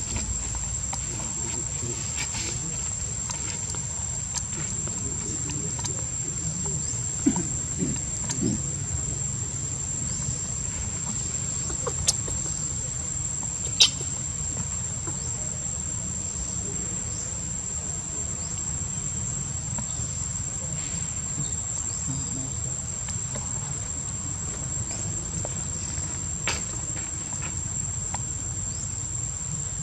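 Steady high-pitched drone of insects, over a low rumble, with a few sharp clicks, the loudest about fourteen seconds in.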